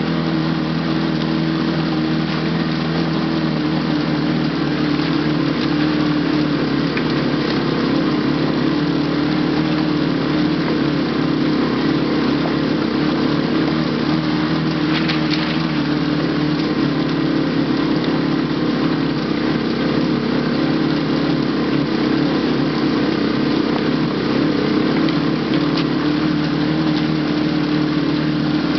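Quad (ATV) engine running steadily as it climbs a rough rocky trail, with a brief clatter about halfway through.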